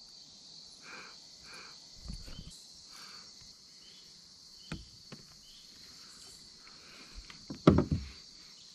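Steady high-pitched chirring of insects. Over it come a few soft knocks and rustles of handling, with a louder cluster of thumps near the end.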